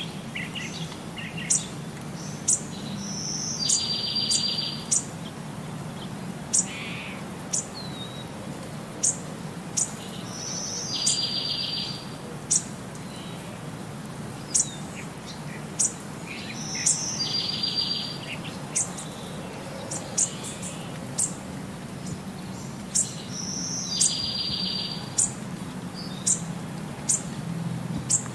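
Birds chirping. A buzzy trill of about a second recurs every six or seven seconds, with short sharp high chirps in between, over a low steady hum.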